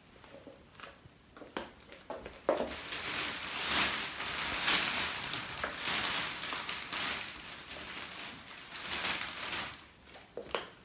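A few light taps, then several seconds of loud, irregular crinkling and rustling of wrapping from the next candles being handled off camera, dying away near the end.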